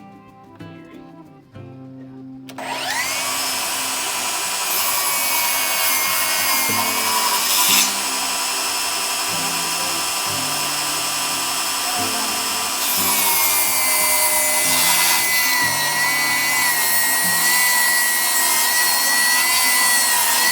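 Cordless table saw spinning up with a rising whine about two and a half seconds in, then running steadily as it rips a board, its pitch sagging a little past the halfway mark as the blade takes the load. Background music plays underneath.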